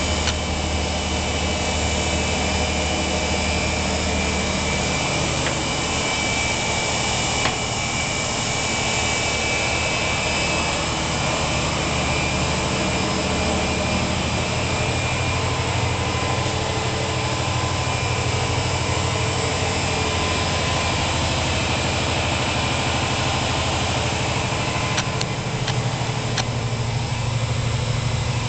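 Motor yacht engine-room machinery running: a loud, steady drone with a low hum and a thin high whine over it, with a few sharp clicks near the end.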